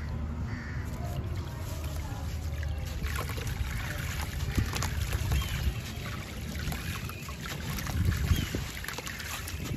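A large dry sand-cement chunk crumbling in the hands, gritty crackles with sand and grains pattering into a tub of water, over a steady low rumble. The crumbling starts about three seconds in.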